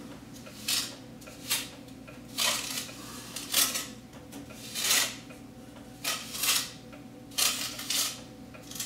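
Small trowel scraping concrete mortar around the rim of a black metal stove pipe set in a brick wall, in a series of short scraping strokes roughly one a second.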